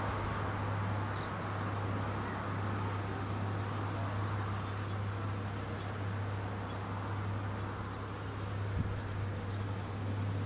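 Harvesting machine's engine running with a steady low drone across the rice field, with faint insect chirps above it and a single sharp click near the end.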